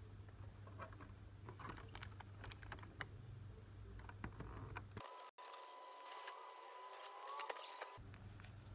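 Foil booster-pack wrappers and a clear plastic blister tray handled by hand: scattered light crinkles, taps and clicks, thickening into a denser stretch of crinkling in the middle with a faint steady tone under it.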